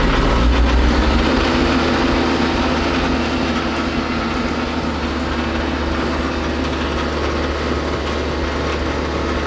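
A Mahindra tractor's diesel engine running steadily, heard from inside the cab. Its speed rises about a second in and then holds.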